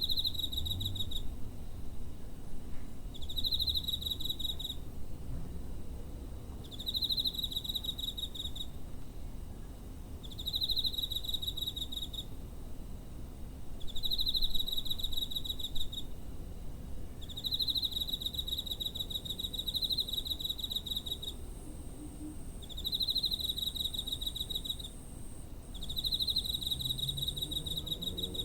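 Cricket chirping in repeated pulsed trills, each lasting about a second and a half and coming roughly every three seconds, over a faint steady high tone and a low background rumble.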